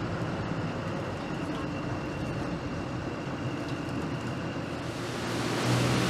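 Jet boat's inboard engine running steadily, heard from inside the open cabin, with a faint high whine above it. About five seconds in, the engine grows louder as the driver works the throttle, and a rush of water spray joins it as the boat runs into rapids.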